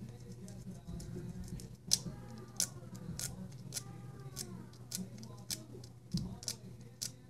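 Short, regular scraping strokes, about one and a half a second, starting about two seconds in: a hand tool worked along a sharp edge of a titanium knife handle to dull it.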